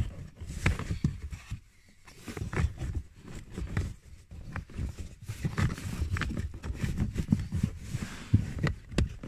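A pleated cabin air filter being handled and shifted against the filter housing and footwell carpet: irregular scrapes, rustles and light knocks of its frame.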